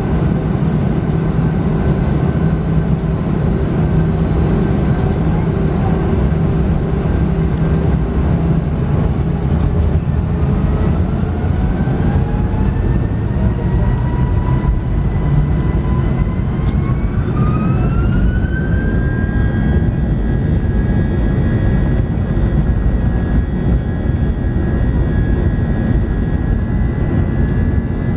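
Airbus A320's jet engines heard from the cabin over the wing, running with a steady low rumble as the aircraft taxis. About ten seconds in, an engine whine rises in pitch for several seconds and then holds steady as the engines spool up.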